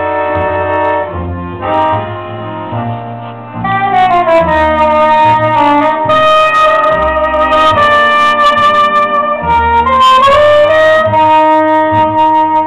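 Live chamber-jazz trio of accordion, double bass and soprano saxophone. Accordion chords over a low bass line open the piece, then the soprano saxophone comes in louder about three and a half seconds in with a melody of long held notes, sliding up to a higher note a little before the end.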